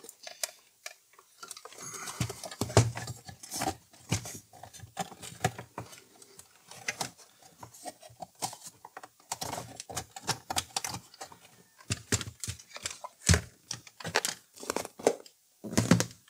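Plastic turntable chassis being handled and turned onto its side on a wooden desk: irregular clicks, knocks and rustling of plastic parts and cables, with one sharper knock late on.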